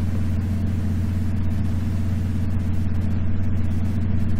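A steady low hum with several even tones, unchanging throughout, with no other sound over it.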